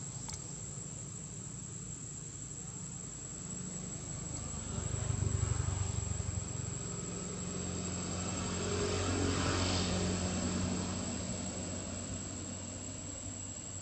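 A distant motor engine hums, swelling twice, about a third of the way in and again just past the middle, then fading away. A steady high insect buzz runs underneath.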